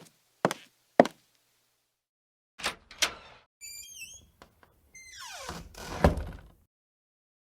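A string of separate cartoon sound effects. Three sharp knocks come half a second apart, then after a pause two thuds, a quick run of short high chirps, and a falling sweep that ends in a heavy thud.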